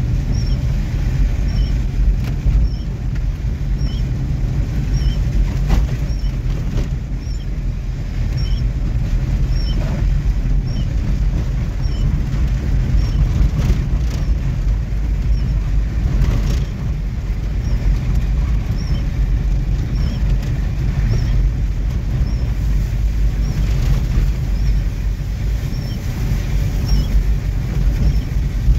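Car driving on a muddy dirt road: a steady low rumble of engine and tyres, with a faint high squeak repeating about every three-quarters of a second.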